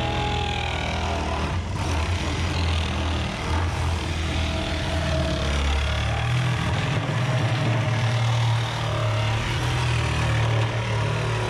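Reciprocating saw running steadily as it cuts around the top of a plastic barrel, a continuous buzzing rasp of the blade through the plastic.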